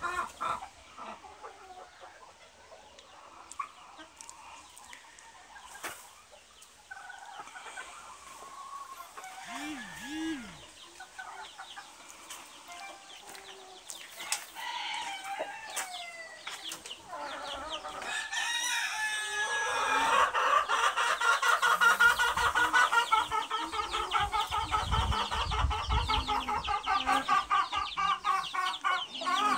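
A flock of chickens clucking, with a rooster crowing partway through. A dense run of rapid clucking grows loudest from about two-thirds of the way in.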